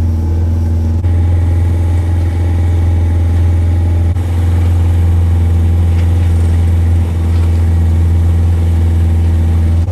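Small boat's outboard motor running at a steady speed: a loud, even, low drone.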